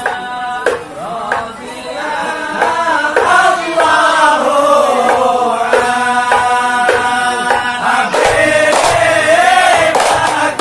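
A group of men singing a devotional hadrah chant together, accompanied by occasional strokes on rebana frame drums. The singing swells in the first few seconds, and the drumming grows busier near the end.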